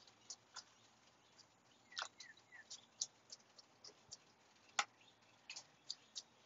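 Faint, scattered clicks and soft taps of a barbecue mop dabbing sauce onto ribs on a smoker's steel grate. A bird gives three quick falling chirps about two seconds in.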